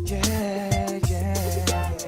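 Background music with a steady beat: bass, drums and held melody notes.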